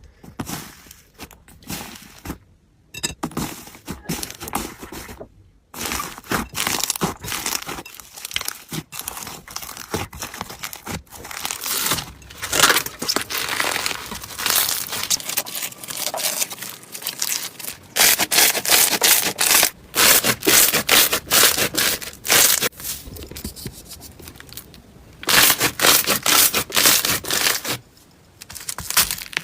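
Slime being squeezed and worked by hand, giving dense crackling and popping, with several louder stretches of crackle.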